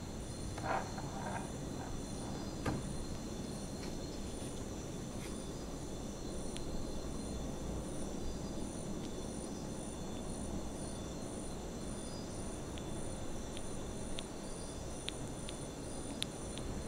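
Steady low rumble and hiss, with a faint high-pitched pulse repeating evenly throughout and a few light clicks near the end.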